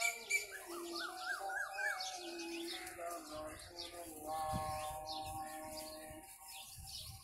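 Birds chirping and twittering, with a call to prayer (azan) sung in long wavering notes behind them.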